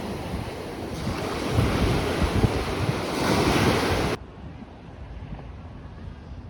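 Sea waves washing onto the beach, with wind buffeting the microphone in low rumbles. The surf swells twice, then cuts off abruptly about two-thirds of the way through, leaving a much quieter hiss.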